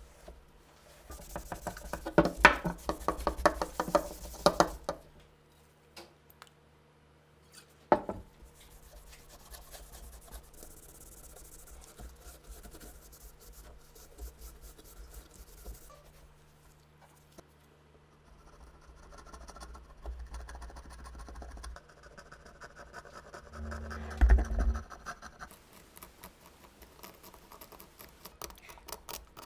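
Hands working on metal gun parts: a few seconds of quick scraping and rubbing, a single sharp click about eight seconds in, quieter rubbing and light clinks, then a heavier knock with a short clatter near the end.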